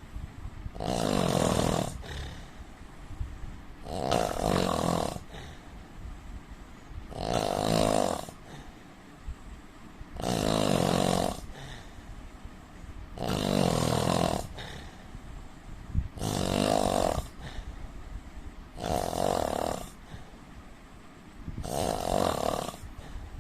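A man snoring, eight snores in a steady rhythm about three seconds apart, each lasting about a second.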